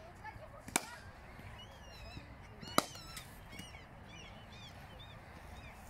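A CA Morgan cricket bat striking the ball twice, two sharp knocks about two seconds apart. Birds chirp faintly in the background.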